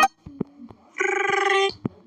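A few soft clicks, then about a second in a short buzzing electronic alarm tone from the Pushclock alarm app, held steady for under a second.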